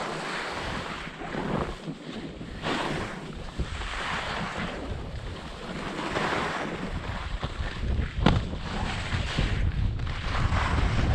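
Alpine skis swishing and scraping over packed snow, swelling with each turn roughly every second or two, with wind buffeting the microphone as a low rumble. A single sharp click comes about eight seconds in.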